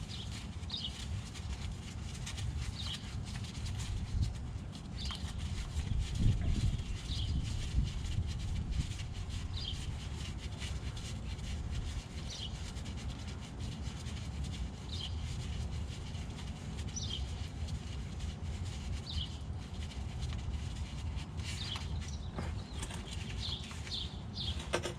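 A bird repeating a short, high chirp about every two seconds over a steady low rumble.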